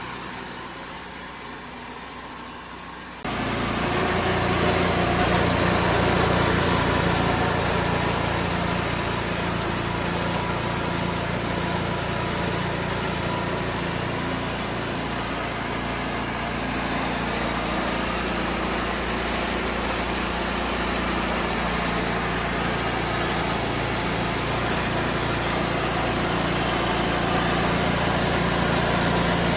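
Wood-Mizer band sawmill running steadily as it saws through a log, a constant engine hum under broad machine noise. The sound jumps abruptly louder about three seconds in.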